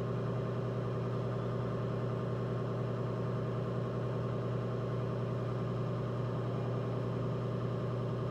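Electric pottery wheel's motor running at a steady speed, a constant low hum.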